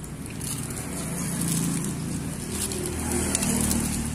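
A motor vehicle's engine running with a steady low hum that grows a little louder over the first second, then holds.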